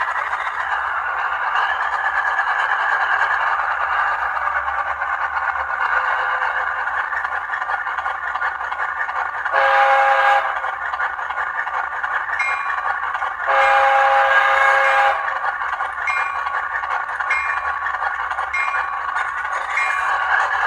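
ESU LokSound 5 sound decoder in an HO-scale Athearn Genesis SD90MAC-H Phase II locomotive, playing a diesel prime mover running steadily through the model's small speaker, with no low end. It also sounds two horn blasts, a short one about ten seconds in and a longer one about three seconds later.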